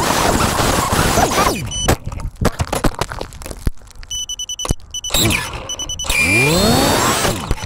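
FPV quadcopter's EMAX ECO II brushless motors and propellers: a loud rush of noise as the quad tears through brush and crashes, then a run of short, stuttering motor bursts with high beeping tones. These give way to rising and falling whines as the motors are pulsed to flip the upside-down quad back over.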